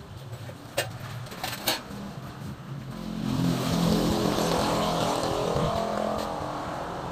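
A motor vehicle's engine rising about three seconds in and then slowly fading, with a few sharp knocks before it.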